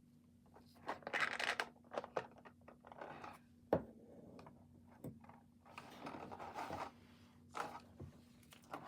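Plastic packing from a diecast model airliner's box rustling and crinkling in uneven bursts as the model is unwrapped, with a few sharp clicks.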